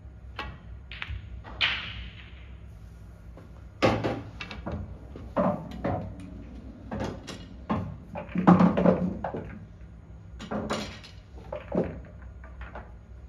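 Pool balls knocking: a cue strike and ball-on-ball clicks in the first two seconds, then repeated clattering knocks as balls are pulled from the pool table's ball-return tray.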